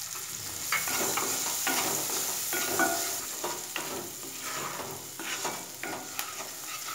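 Chopped onion sizzling in hot oil in a nonstick kadai, stirred with a wooden spatula in repeated strokes, about two or three a second, that scrape against the pan. The onion is being sautéed toward translucent.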